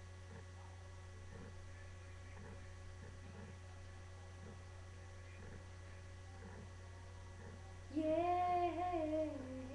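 A steady low electrical hum for about eight seconds, then a young girl starts singing alone with no accompaniment, holding and bending a note near the end.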